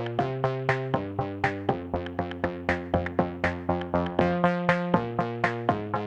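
Background electronic music: synthesizer chords over a steady beat of about four pulses a second.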